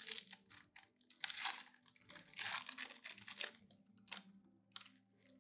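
Shiny candy wrapper crinkling and tearing in the hands as a sweet is unwrapped, in several irregular bursts of rustling.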